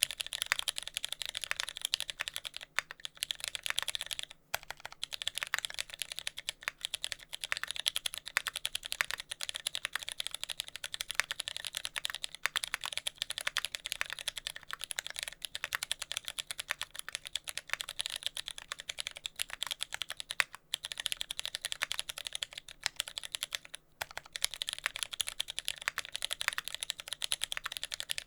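Continuous fast typing on a mechanical keyboard: a TX65 with lubed Cherry MX Brown tactile switches on a brass plate, with no sound dampening, and GMK keycaps. Rapid keystroke clicks with brief pauses now and then.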